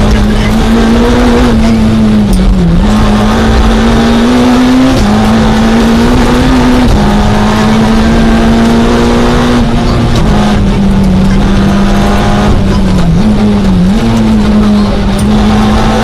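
Citroën Saxo A6 rally car's four-cylinder engine running hard at high revs, heard from inside the cabin, its pitch dropping sharply at several gear changes.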